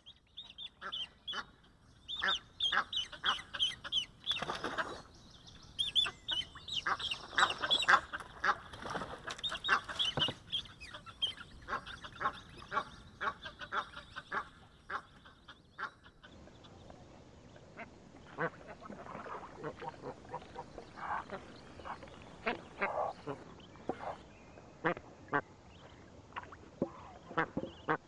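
Egyptian geese calling, a quick run of short honking calls, several a second, that goes on throughout.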